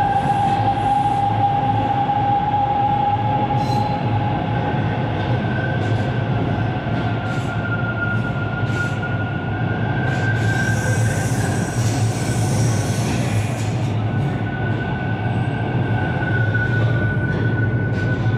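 TTC T1 subway train rolling past along the station platform: a steady low rumble from the cars with a high, slightly wavering whine from the wheels and running gear, and occasional light clicks.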